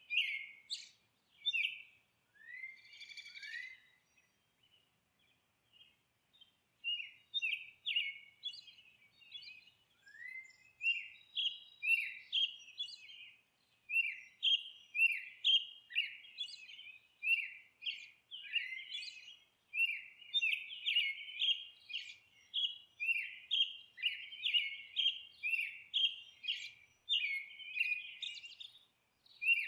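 Birds chirping: quick runs of short, high-pitched chirps, several a second, with a brief lull about four seconds in before the chirping picks up again and grows denser.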